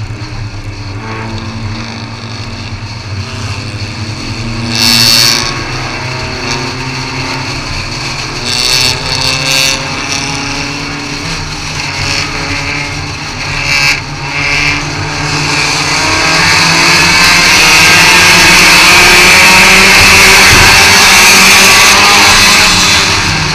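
Thunder-class race car's engine heard from inside the car on track, its pitch rising and falling with throttle. There are brief loud rushes of noise a few times, and from about two-thirds of the way in a louder, steady roar of engine and wind at speed.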